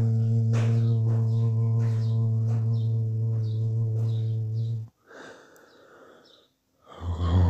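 A low, steady hummed chant drone held on one pitch for about five seconds, then breaking off. A breathy intake follows, and the drone starts again near the end.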